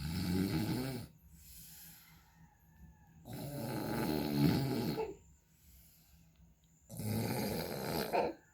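A person snoring heavily, with three loud, harsh snores a few seconds apart and quieter breathing between them. The snore is likened to a racing exhaust.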